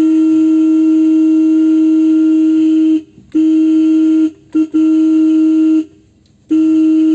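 A vehicle horn sounded in repeated presses at one steady pitch: a long blast of about three seconds, then shorter ones of about a second with a very brief tap between them.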